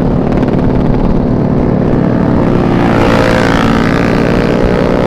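Small automatic scooter engine running steadily under way, with wind rumbling on the microphone. About three seconds in, a higher engine note rises over it, from the scooter or a motorcycle close by.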